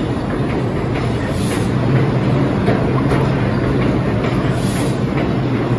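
An R142 subway train on the 2 line running past on the express track: a steady, loud rumble of wheels on rail with repeated clacks as the wheels cross rail joints.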